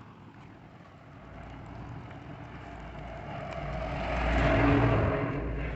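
A truck driving past on the road, its engine rumble and tyre noise growing steadily louder to a peak about four and a half seconds in, then easing slightly.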